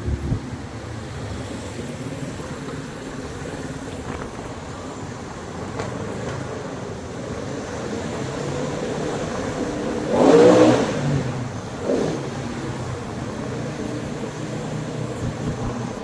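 A car's steady engine and road noise, with a louder rush about ten seconds in and a shorter one just after.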